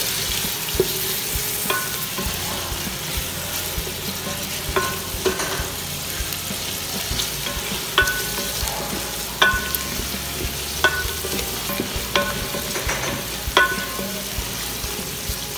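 Shrimp with onion and garlic sizzling in hot oil in an aluminium pot while a wooden spatula stirs and scrapes them. The spatula knocks against the pot about every second or so, some knocks making the pot ring briefly.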